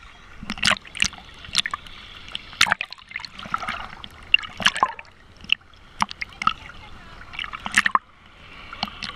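Sea water lapping and splashing against a camera held at the surface, with irregular sharp slaps and gurgles as small waves wash over the housing.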